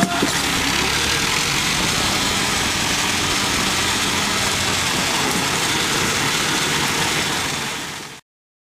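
Massey tractor engine running steadily while towing, with a dense rushing noise over it; the sound fades out near the end.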